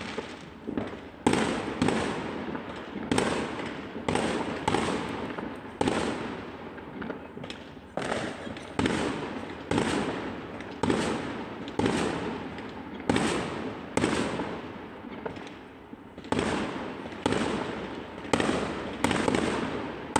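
Fireworks going off in a steady run of bangs, about one a second, each fading away quickly. There is a brief lull about fifteen seconds in.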